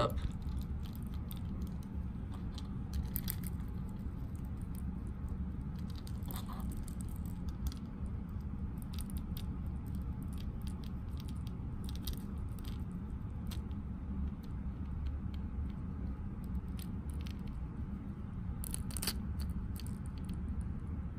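Faint, scattered small metallic clicks of a steel split ring and treble hooks being worked between the fingertips, over a steady low hum.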